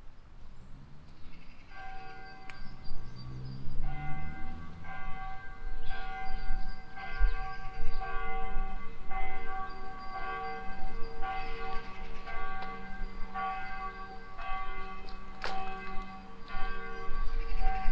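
Church bells ringing in a tower, a steady run of overlapping strikes that starts about two seconds in and keeps going. A single sharp click near the end.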